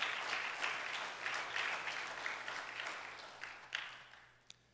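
Church congregation applauding. The clapping fades and dies away about four seconds in, with a last stray clap or two.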